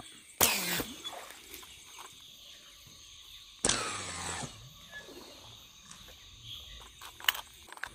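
Slingshot fishing rig loosing a line-tethered arrow into a pond: a sudden rush of noise about three and a half seconds in, lasting under a second. A shorter rush of noise comes half a second in.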